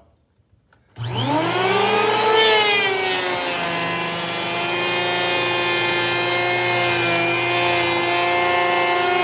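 TOPSHAK handheld electric planer starting about a second in, its motor whine rising as it spins up. It then planes rough-sawn oak at an aggressive 1/16-inch depth of cut: about two and a half seconds in, a hiss of cutting joins the whine and the pitch dips a little under the load, then holds steady.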